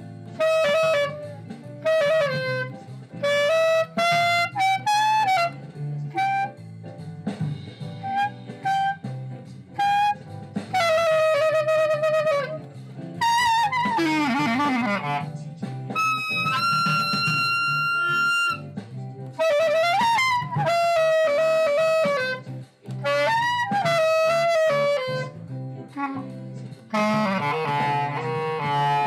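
Glory GLY-PBK Bb clarinet played with a Belmonte hard-rubber mouthpiece: short phrases of separate notes with a few slides between them, and one long held high note about halfway through.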